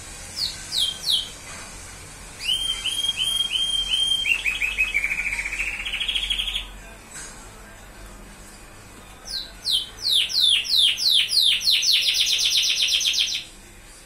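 White color-bred canary singing in short song phrases of rapidly repeated high notes and fast trills. The first phrase ends in a slightly rising trill; the second, louder phrase runs from a string of quick falling whistles into a fast trill that stops abruptly near the end. There is a pause of a few seconds between the two phrases.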